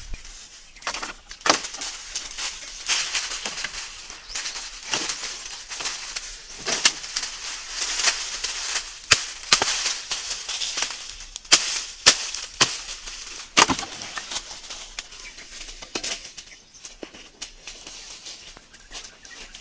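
Dry twigs and branches snapping in irregular sharp cracks, with rustling of dry leaves and brush as undergrowth is pulled and pushed through.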